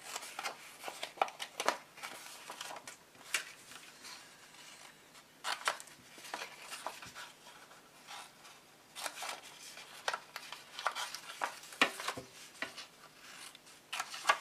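Small scissors snipping into paper, cutting and clearing the corners of a gift box's glue tabs: short, sharp snips, some in quick runs of several.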